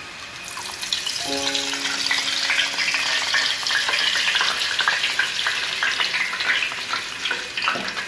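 Hot oil crackling and sizzling as it is poured off a pan of deep-fried centipedes into a plastic bowl. About a second in, a few held notes of background music sound briefly.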